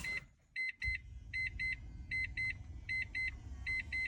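Rebuilt 1994 Mazda RX-7 airbag diagnostic module beeping: short high beeps in quick pairs, repeating about once every three-quarters of a second, the sign that the recapped module has powered up and works. A low hum joins in about a second in.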